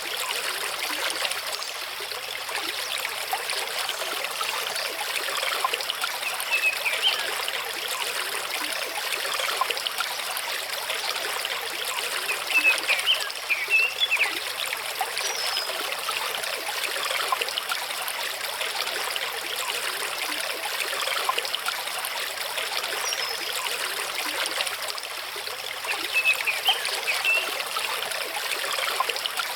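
Mountain stream running over rocks, a steady rush and trickle of water, with a few short bird chirps scattered through.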